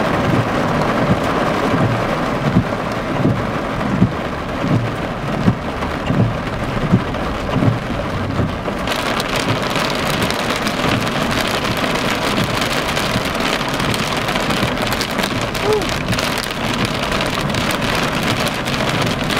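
Heavy rain drumming on a car's roof and windshield in a thunderstorm, heard from inside the cabin, with short low thumps in the first half. About nine seconds in, the rain's hiss suddenly turns sharper and brighter.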